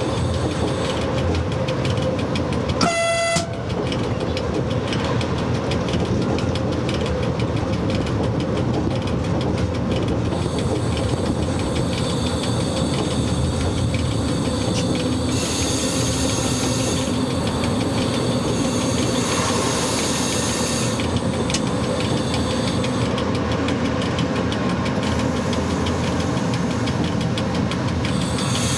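Running noise of an FS E.656 electric locomotive heard from its cab: a steady rumble of wheels on rail and running gear while the train travels along the line. About three seconds in, a short horn blast sounds, a single note lasting about half a second.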